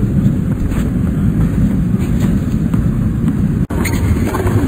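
Tennis ball struck back and forth by racquets in a rally, faint sharp hits about every second over a steady low rumble of stadium ambience. The sound drops out briefly about three-quarters of the way through.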